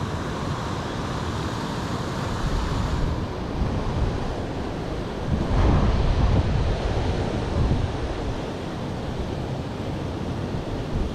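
Wind buffeting the microphone: a steady rushing noise with a stronger low gust a little past the middle.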